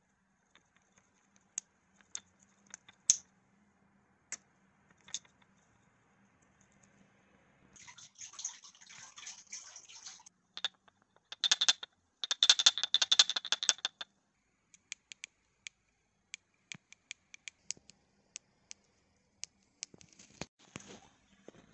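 Xtar R30 1200 flashlight being shaken. With the snug 21700 cell it gives only a few faint clicks. With a smaller 18650 cell the loose battery rattles loudly inside the battery tube, in two bursts. Near the end the green side switch is pressed over and over, a run of light single clicks.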